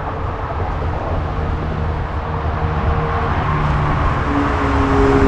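Motor vehicle traffic on a road bridge: a continuous low rumble with a steady engine hum that grows louder near the end.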